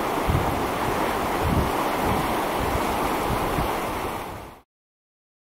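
Fast river water rushing over boulders in pocket water, a steady rush, with wind buffeting the microphone in low thumps. It fades out about four and a half seconds in, then silence.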